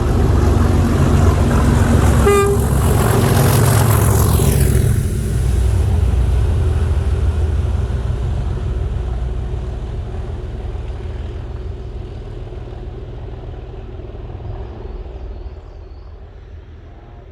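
Class 37 diesel locomotive with an English Electric V12 engine, working hard as it accelerates past, with a short horn toot about two seconds in. Its high whine drops in pitch as it goes by, and the engine sound then fades steadily as the locomotive pulls away.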